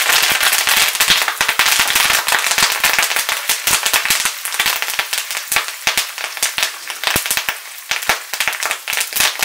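Fresh curry leaves spluttering in hot sesame oil in a wok: a loud, dense crackle of sharp pops as their moisture hits the oil, thinning to scattered pops over the seconds.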